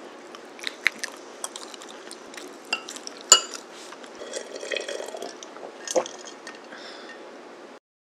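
Metal fork clicking and scraping on a glass plate as a bite of cake is taken, with a loud ringing clink about three seconds in as the fork is set down on the plate. The sound cuts off abruptly near the end.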